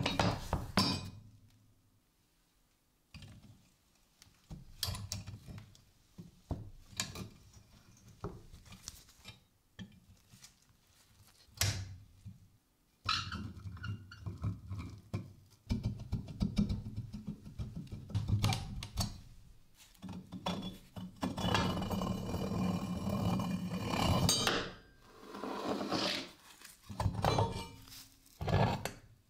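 Heavy, rusty cast-iron pulley handled on a wooden tabletop: scattered knocks, thunks and metallic clinks as it is picked up, turned and set down. About two-thirds of the way through comes a few seconds of continuous rough rubbing noise.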